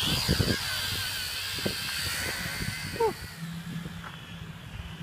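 Small quadcopter drone's propellers whining at high pitch, several wavering tones shifting with the throttle, with a few knocks early on. The whine drops away about three seconds in, leaving a steady low hum.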